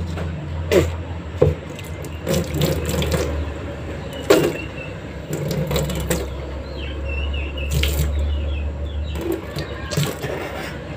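Water splashing and pouring, with a few sharp knocks, over a steady low hum.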